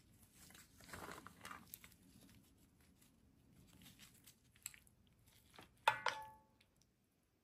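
Soft rustling as chopped herbs and ginger are scattered by hand over the curry. Then a metal spoon clinks against the cast-iron karahi a few times in the second half, the loudest clink about six seconds in with a short metallic ring.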